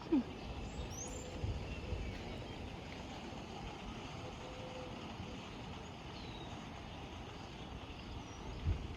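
Steady low outdoor rumble with a few faint, high, short chirps.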